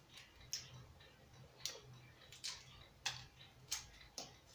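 Shell of a hard-boiled egg crackling as it is peeled by hand: faint, crisp little clicks, about seven of them at irregular intervals.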